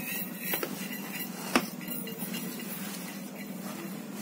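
Hands kneading flour dough in a metal bowl, with bangles on the wrist clinking against each other and the bowl, and one sharp clink about one and a half seconds in, over a steady low hum.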